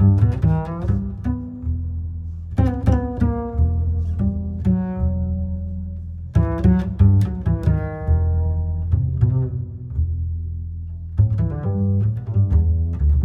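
Background music: clusters of sharply struck notes that ring and fade every few seconds over a deep, sustained bass.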